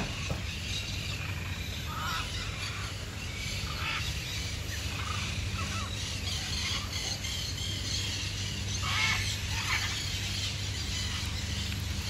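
Several birds calling, short calls scattered throughout with a louder cluster about nine seconds in, over a steady low hum.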